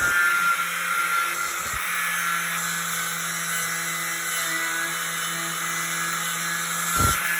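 Milwaukee 11 amp angle grinder running steadily with a twisted-knot wire wheel, the wheel scrubbing paint and rust off a metal door with a steady hiss over the motor's hum. A short knock comes near the end.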